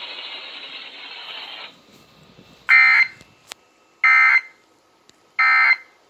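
Three short Emergency Alert System end-of-message data bursts (the digital 'NNNN' code) played through an FM radio, closing the alert. Each is a buzzy electronic burst under half a second, about a second and a half apart. Before them, a steady hiss cuts off just under two seconds in.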